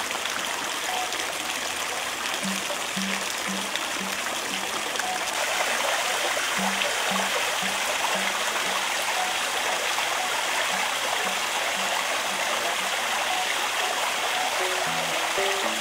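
Water running down a stone water staircase of cascading basins and splashing into a fountain basin: a steady rushing and splashing. Soft background music with a repeated low note plays underneath, a little clearer near the end.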